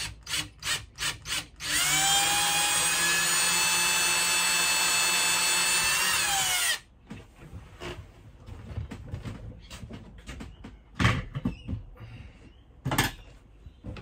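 Cordless drill boring a hole into soft timber: several quick short blips, then the motor spins up, runs steadily for about five seconds and winds down. After that come light knocks and handling noises, with two sharper knocks near the end.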